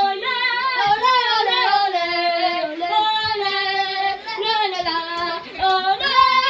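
A child singing loudly in a high voice, the pitch sliding up and down in long, held phrases with short breaks between them: a victory song.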